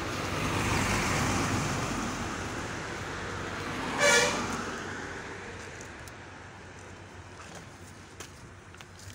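Road traffic passing, its noise swelling over the first couple of seconds and then fading, with a vehicle horn giving one short toot about four seconds in.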